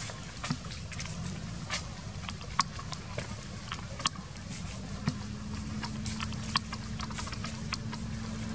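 Outdoor ambience: a low rumble with scattered sharp clicks and ticks, and a steady low hum that starts about five seconds in.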